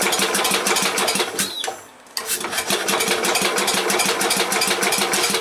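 Starter-generator cranking a cast-iron Briggs & Stratton single-cylinder engine through a belt, choked and unprimed. It turns over fast in two runs with a short break about two seconds in, and never catches.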